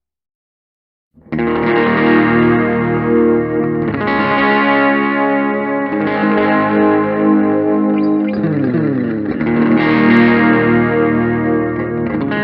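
Distorted electric guitar music starting abruptly about a second in. A downward pitch slide comes about two-thirds of the way through.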